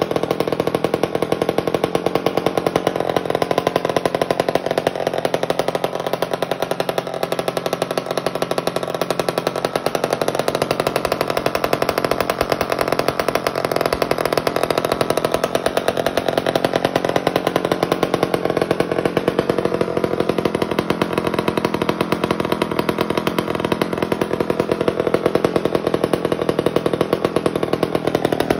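Old Homelite Super Wiz bow-bar chainsaw's two-stroke engine running steadily, firing in rapid, even pulses.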